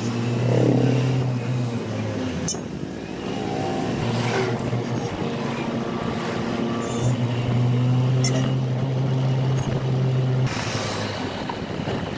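Engine drone and road noise heard from inside a moving vehicle. A strong low hum fades in and out a couple of times over a steady rush of traffic and wind.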